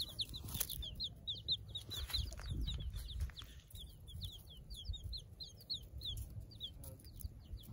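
Several baby chicks peeping: a steady stream of short, high-pitched cheeps, several a second.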